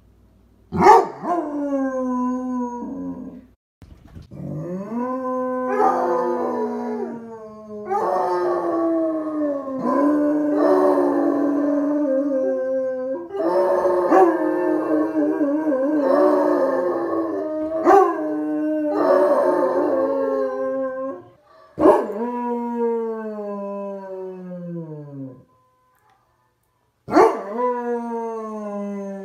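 Basset hound howling: a series of long howls, each starting high and sliding down in pitch, with short breaks between them. Through the middle the howls run together and waver, and a few begin with a sharp click.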